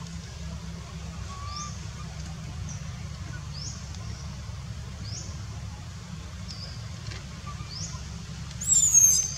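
Infant long-tailed macaque giving a loud, high-pitched cry near the end, sliding slightly down in pitch. Before it come faint short high chirps about once a second over a low steady hum.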